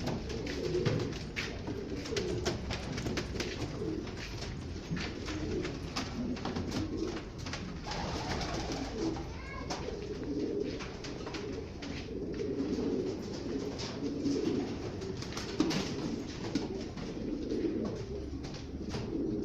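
Many domestic pigeons cooing together in an enclosed loft, low overlapping coos with no break, among scattered short taps and clicks.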